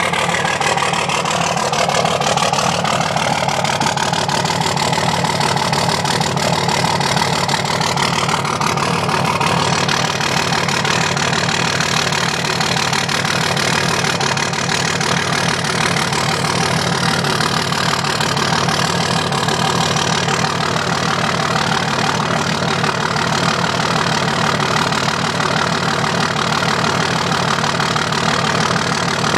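2005 Dodge Ram 2500's 5.9 L Cummins inline-six turbo-diesel idling steadily with one injector not firing, a dead cylinder.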